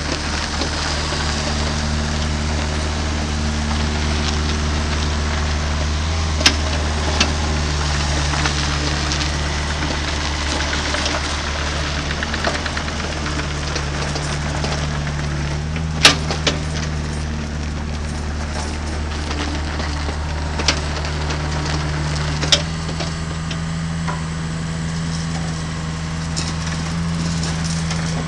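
Ditch Witch MX502 mini excavator's diesel engine running steadily as the machine travels on its rubber tracks and works its boom. The engine note steps up slightly a couple of times, and a few sharp knocks sound now and then.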